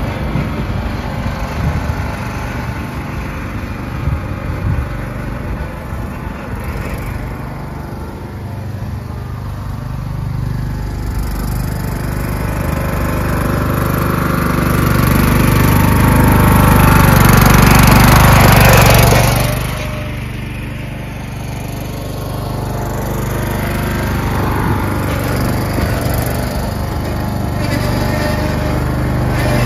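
Craftsman LT1000 lawn tractor's engine running under way. It grows steadily louder to a peak about eighteen seconds in, then drops off suddenly and keeps running at a steady, lower level.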